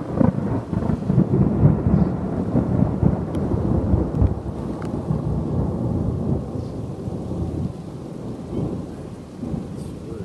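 Thunder from a nearby lightning strike: a crunchy, crackling rumble that is loudest over the first several seconds and fades off near the end.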